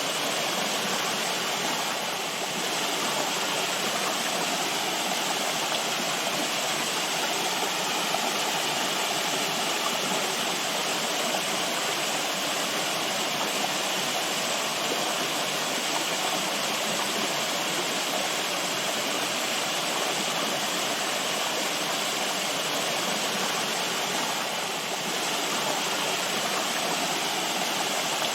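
Steady rushing of running water, a stream or small waterfall, even and unbroken.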